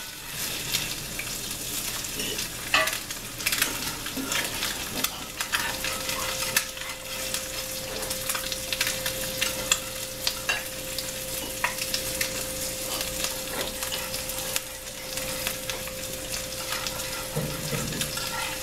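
Eggs sizzling in a cast-iron skillet on a wood cookstove, with a metal utensil scraping and clicking against the pan now and then. A faint steady tone sets in about five seconds in.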